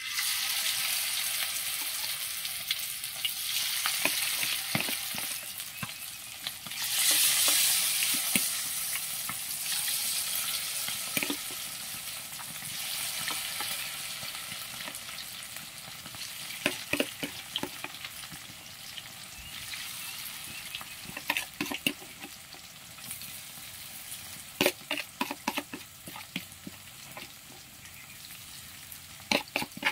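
Battered oyster mushrooms deep-frying in hot oil in a wok: a loud sizzle starts suddenly as the first spoonful goes in and swells about seven seconds in, then settles into a steadier sizzle with scattered crackles and pops. Another spoonful goes in near the end with a fresh burst of sizzling.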